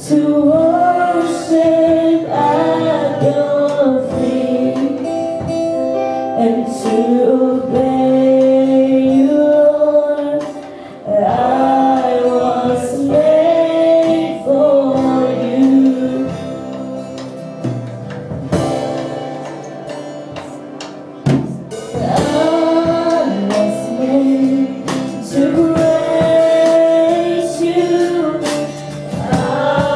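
Live worship band playing a praise song: a woman sings the lead into a microphone, backed by electric guitar and drums.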